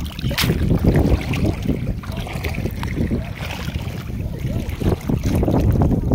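Wind buffeting the microphone: a rough, uneven rumble that swells and dips, over shallow seawater.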